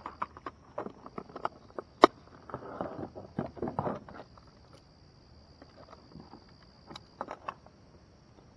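Steady high-pitched insect buzz, with a run of clicks, knocks and rustling in the first half, the sharpest click about two seconds in, and a few more clicks near the end.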